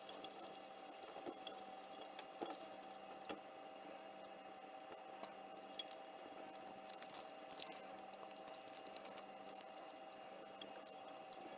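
Bacon sizzling faintly in a griddle pan, with a few sharp clicks of metal tongs against the pan as the slices are turned.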